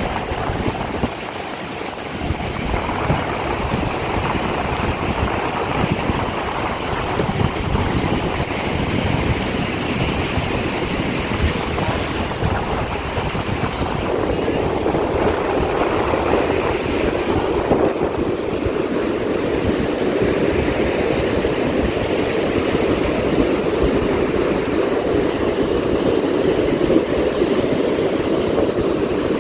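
Wind buffeting the microphone over the rushing wash of surf breaking on a beach; the surf grows louder about halfway through.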